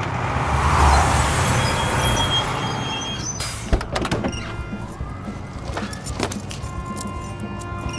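Delivery truck engine rumbling under a loud rushing hiss for the first three seconds. Then comes a run of sharp clunks and clicks from the truck's cab and doors, over a steady low hum.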